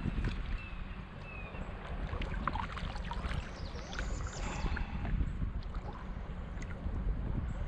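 Wind rumbling on the microphone over water lapping against a small kayak's hull, with scattered small splashes and taps between about two and five seconds in.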